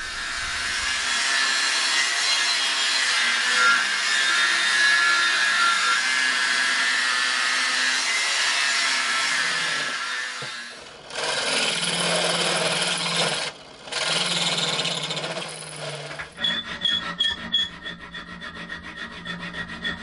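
Metalworking on steel plate: an angle grinder cutting steel runs steadily for about ten seconds, then a power tool motor runs in two short bursts, and from about 16 seconds a hand file rasps the cut steel in quick, even strokes.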